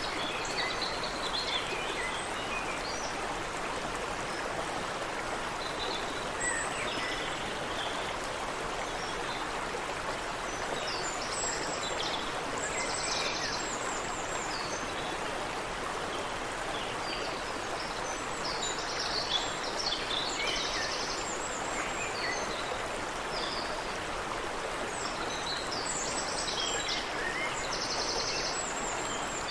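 Creek water running steadily, with small birds chirping and calling over it, including several short, rapid high trills.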